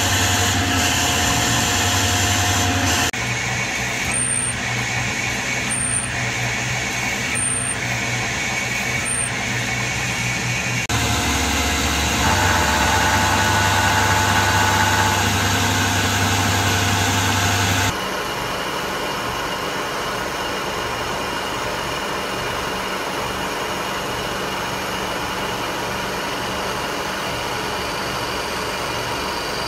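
Milling machine spindle running while end mills cut aluminum, in several short clips joined together. Between about 4 and 9 seconds a short high squeal comes about every second and a half. In the later part a large face mill takes a steady, quieter pass across an aluminum plate.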